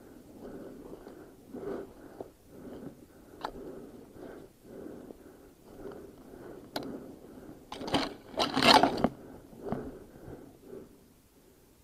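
Footsteps swishing and crunching through tall grass and brush at a steady walking pace, about two steps a second. Two sharp clicks come a few seconds apart, and a louder stretch of rustling and crackling comes about eight seconds in.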